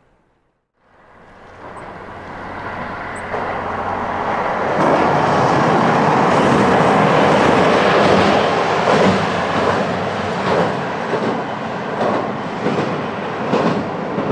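Kyoto Tango Railway KTR800 diesel railcar approaching and passing, growing louder for about four seconds. Then comes a run of clickety-clack as its wheels cross the rail joints.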